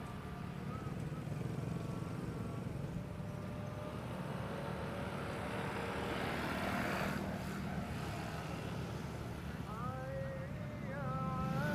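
Road traffic: a steady rumble of cars, with one vehicle passing close about six to seven seconds in. Over it, a distant voice sings long, wavering held notes, early on and again near the end.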